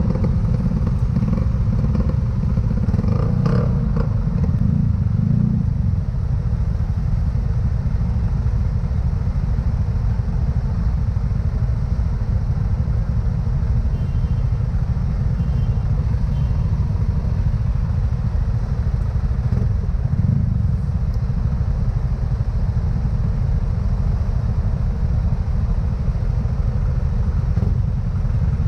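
Motorcycle engine running at low speed in stop-and-go traffic, heard as a steady low rumble through the camera mounted on the bike, with a few brief knocks about three seconds in.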